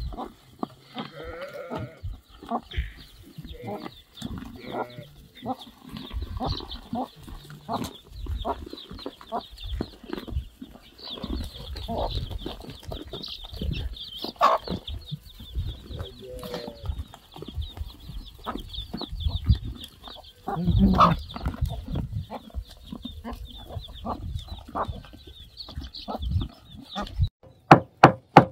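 Goats and sheep bleating now and then amid irregular knocks and shuffling, over a steady high chirping in the background. About a second before the end it gives way to a quick, even run of sharp knocks.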